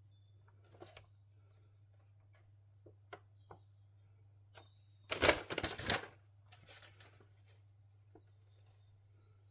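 Small clicks and taps of hand work on car parts, with a loud rattling clatter of about a second some five seconds in and a few lighter rattles just after.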